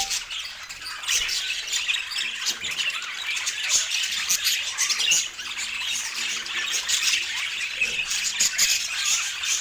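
Several pet budgerigars chattering and warbling together: a dense, unbroken run of quick high calls, chirps and sharp clicks.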